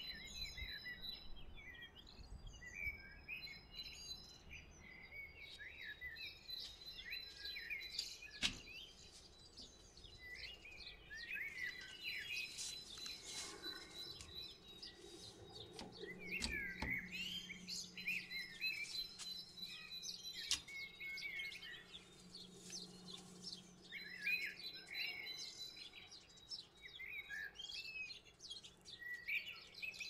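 Small aviary birds, finches and canaries, chirping throughout, with a few sharp clicks, the loudest about eight seconds in.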